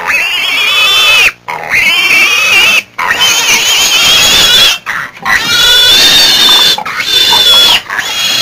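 Very loud, shrill shrieking in five long, wavering bursts with short breaks between them, high in pitch throughout.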